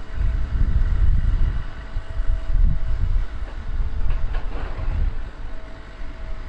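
Low, heavy rumble of a working crawler excavator's diesel engine as the machine digs, with a faint rattle and scrape of the bucket in the earth about four seconds in.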